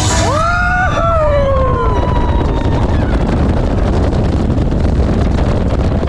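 A person's long whoop that rises in pitch, breaks briefly and then slides down, over a loud, steady rushing noise.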